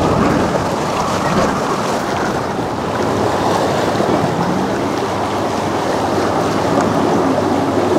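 Choppy, wind-driven lake water splashing against a concrete boat ramp and dock, mixed with gusty wind on the microphone: a steady, loud noise.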